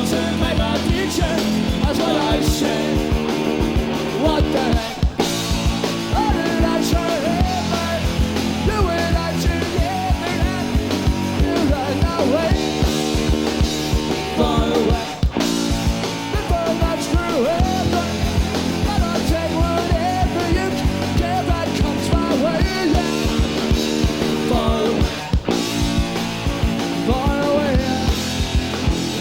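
Punk rock band playing live with no vocals: distorted electric guitar, bass and fast drums, with bending guitar lines over the chords. The sound drops out briefly about every ten seconds.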